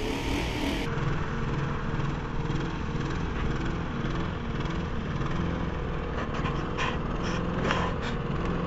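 A lawn mower's small engine running steadily, with a few light clicks near the end.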